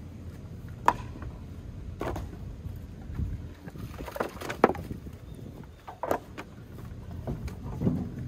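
Split firewood pieces clunking against one another as they are pulled from stacks and tossed into a trailer and a pickup bed: irregular wooden knocks a second or two apart over a low steady rumble.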